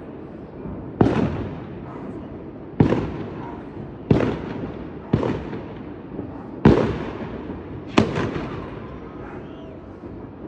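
Distant fireworks exploding: six sharp bangs at irregular intervals of about one to one and a half seconds, each trailing off in a rolling echo, with nothing after the sixth bang near the end.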